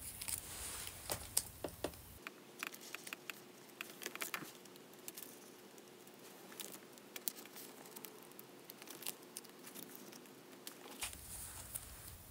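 Clear plastic binder sleeves crinkling and rustling as photocards are handled and slid into their pockets, with scattered sharp clicks and taps. The handling is busiest in the first few seconds and sparser after.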